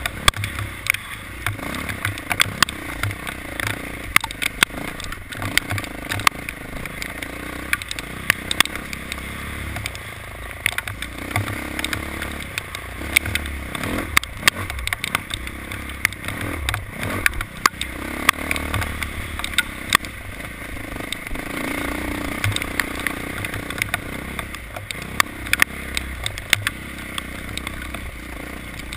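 Motor vehicle running while being driven, its engine a steady low rumble, with frequent sharp, irregular clicks and rattles throughout.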